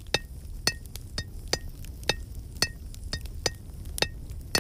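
Hammer striking an anvil in a steady rhythm, about two blows a second, each blow ringing with a bright metallic tone, over a low steady rumble.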